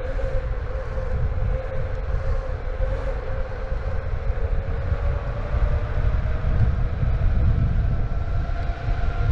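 Electric skateboard's direct-drive hub motors whining as it rolls at speed, the whine climbing gently in pitch partway through as the board speeds up, over a low, gusty rumble of wind and wheels on asphalt.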